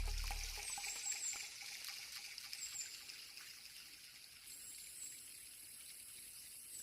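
Faint trickling water, with a few short, high-pitched falling chirps. The tail of a music track fades out at the start.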